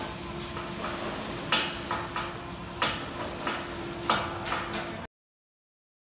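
Building-site work noise: irregular sharp knocks and taps over a steady hum. The sound cuts off abruptly about five seconds in.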